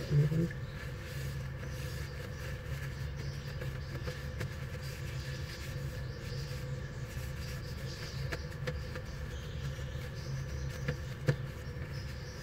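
Steady low mechanical hum, with a few faint clicks in the last few seconds.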